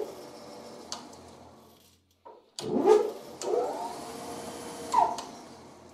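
Boley lathe spindle and belt drive spun up by the motor with a rising whine, then slowing to a stop under its drum-type spindle brake, which is now working after the push-rod linkage was tightened. This happens twice, the second start about two and a half seconds in, with a short sharp sound about five seconds in.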